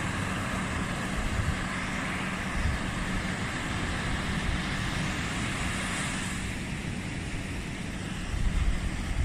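Sea surf washing on a sandy beach, a steady hiss of water with wind rumbling on the microphone that gets heavier near the end. A faint steady low hum runs underneath.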